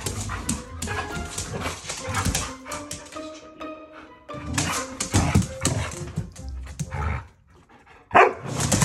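Two huskies play-fighting, barking and yipping at each other in irregular bursts, over background music; the sound drops away briefly about seven seconds in and then comes back loud.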